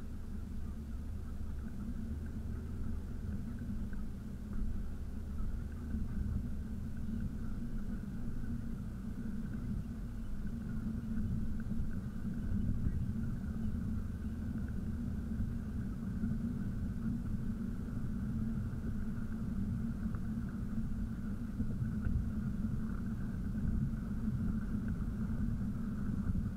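Steady low rumble of a car's engine and road noise heard from inside the cabin while driving in traffic.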